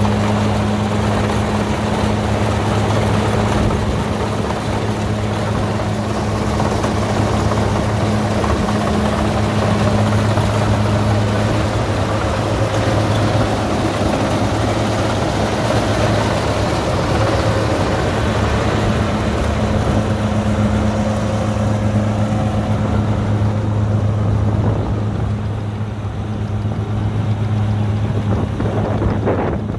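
Kubota DC60 combine harvester's diesel engine running steadily with a low, even hum under the rattle of the machinery, with no pause.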